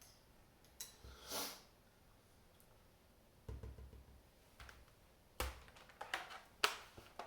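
Handling of a laptop: a series of separate clicks and knocks of hard plastic, with a few dull thuds around the middle and sharper clicks near the end.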